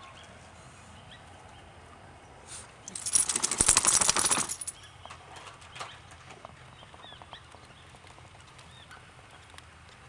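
A burst of rapid wing flapping from birds taking off, about three seconds in and lasting under two seconds. It is followed by a few faint clicks and soft bird calls.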